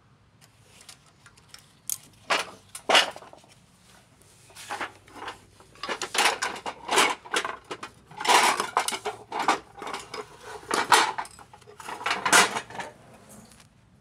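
Metal tools and a washing machine motor being handled, giving irregular metallic clinks and knocks in scattered clusters.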